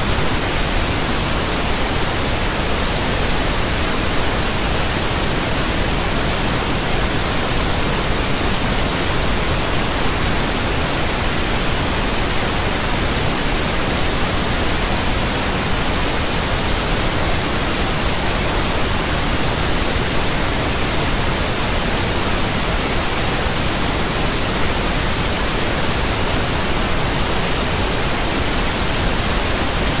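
Steady white noise: an even, unchanging hiss spread evenly from low to high pitch.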